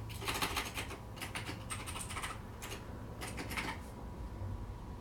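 Typing on a computer keyboard: several quick runs of keystrokes with short pauses between them, stopping a little before the end.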